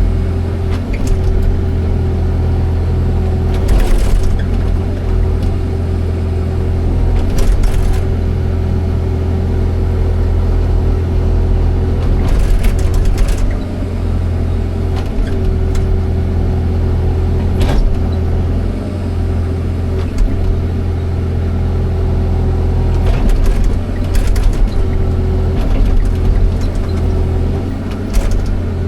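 Excavator's diesel engine running steadily with a steady whine over its drone, and a few short clanks and knocks from the machine at work.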